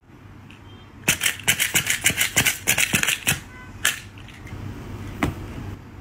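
Quick tapping on a black leather ottoman: a fast run of taps for about two seconds, then a few single taps.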